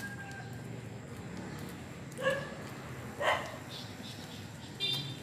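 Dogs barking: two barks about a second apart, then a short high-pitched call near the end.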